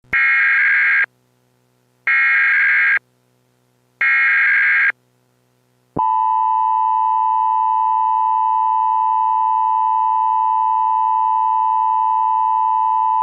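Emergency Alert System broadcast signal: three one-second bursts of the digital SAME header, about two seconds apart, then a steady single alert tone near 1 kHz starts about six seconds in and holds.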